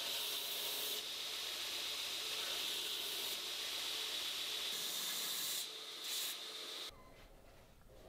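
Belt grinder sanding a knife handle held against the running belt: a steady abrasive hiss with a high whine, swelling and easing as the pressure changes. It cuts off suddenly about seven seconds in.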